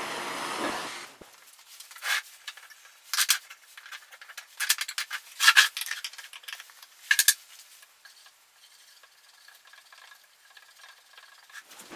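A propane torch's flame hissing steadily, stopping about a second in. Then a few sharp metallic clicks and clanks, the loudest about five and seven seconds in, as the lid is pried off a metal can of wood stain.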